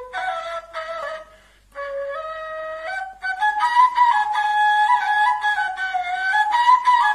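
Bamboo flute playing a melody: short separate notes at first, a brief break about one and a half seconds in, then longer held notes with slides between them.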